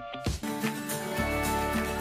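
Background music: a held closing chord, with a low bass note coming in about a second in.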